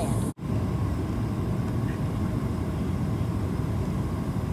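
Steady engine and airflow rumble inside the cabin of a Boeing 737 descending on approach with flaps out. The sound cuts out for an instant about a third of a second in.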